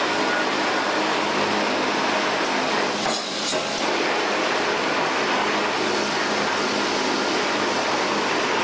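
Steady, dense factory machine noise with a faint hum, dipping briefly about three seconds in.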